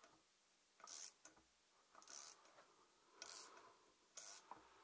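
Hand wrench unscrewing the flywheel nut on a 49cc two-stroke pocket bike engine, the flywheel held by a screwdriver: four short, faint scraping strokes about a second apart as the nut is worked loose.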